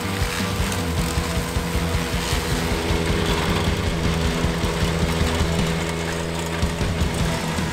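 Ventrac 4520 compact tractor running steadily at work, its engine drone mixed with the noise of the attachment working the ground.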